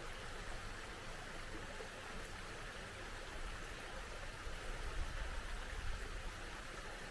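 A small mountain stream flowing steadily, a continuous rushing of water. A low rumble swells briefly about five seconds in.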